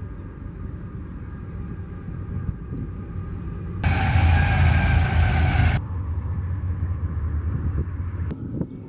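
BNSF freight diesel locomotives running and passing in short clips that cut abruptly, with a steady low engine rumble throughout. A louder, brighter passage with higher tones comes in sharply about four seconds in and drops out about two seconds later.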